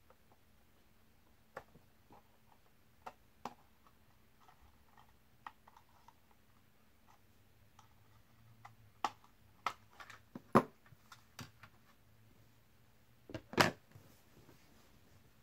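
Scattered light clicks and knocks of a screwdriver working the screws and plastic back cover of a solar motion LED light, with the cover being handled and lifted off. The clicks come more often in the second half, and two sharper knocks stand out about three seconds apart near the end.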